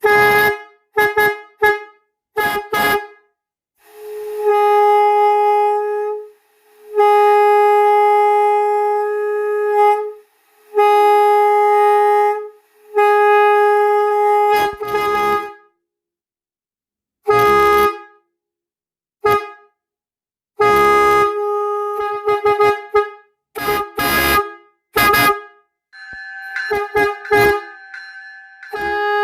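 Semi truck horn blown in a string of blasts: a few quick toots, then several long holds of two to three seconds each, then more short and long blasts with silent gaps between. A fainter horn tone on two pitches comes in near the end.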